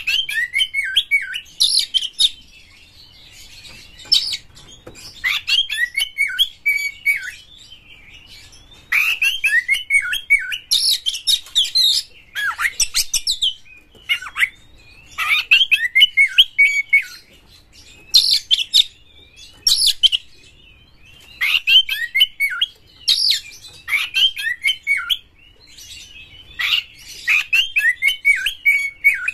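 Male Oriental magpie-robin singing loudly: bursts of falling whistled notes mixed with rasping notes, each burst a second or two long, repeated every couple of seconds with short pauses between.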